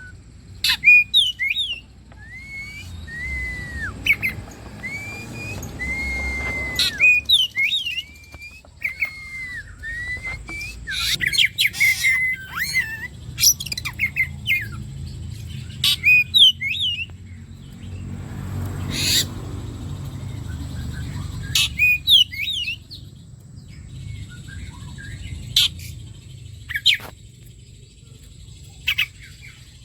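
Oriental magpie-robin (kacer) singing: a run of repeated curved whistled notes, then a busier stretch of quick varied chirps and sharp calls. A low rumble sits underneath twice.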